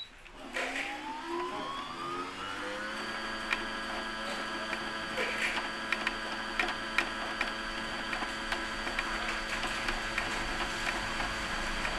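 A Brother computerised sewing machine's motor winding a bobbin. It spins up with a rising whine over the first few seconds, then runs at a steady pitch.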